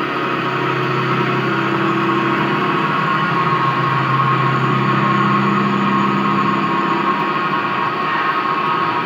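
CNC sliding-headstock automatic lathe running: a steady high whine with a lower hum that shifts pitch a couple of times and drops away near the end.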